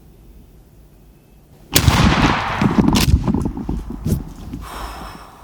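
A single shotgun blast about two seconds in, followed by a few seconds of loud rustling and knocking commotion that fades out.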